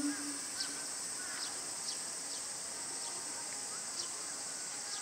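Steady high-pitched drone of a summer cicada chorus, with short high chirps scattered through it.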